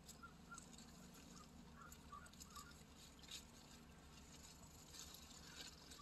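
Faint lapping and trickling of calm sea water over a stony beach, with small irregular splashes against the pebbles. A few short, soft, high bird chirps come through it.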